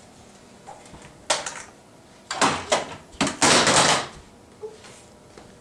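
Rummaging at a cabinet: a sharp knock about a second in, then two loud bursts of scraping and rustling as things are handled and moved.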